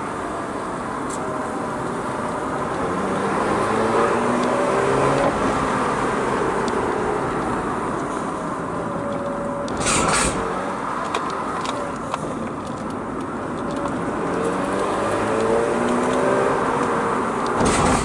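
Mazda RX-8's twin-rotor Wankel engine heard from inside the cabin while the car is driven hard downhill, with tyre and road noise. The engine pitch climbs twice as it accelerates, settling between, and there are two brief bursts of noise, one near the middle and one at the end.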